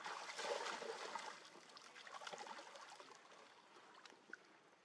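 Water splashing and trickling, louder in the first second and a half and then fainter, with small irregular splashes.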